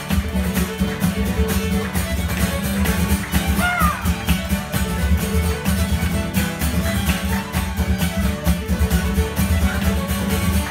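Fiddle and acoustic guitar playing a reel together, the guitar strumming a steady driving rhythm under the fiddle melody.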